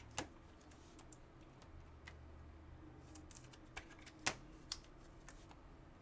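Faint, irregular plastic clicks and taps as trading cards are slid into rigid plastic toploaders and handled, the sharpest tap about four seconds in.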